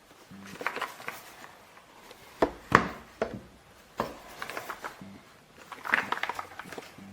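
Typing on a Kisnt gasket-mounted mechanical keyboard with linear switches: quick bursts of keystrokes, with a few louder single key presses in between.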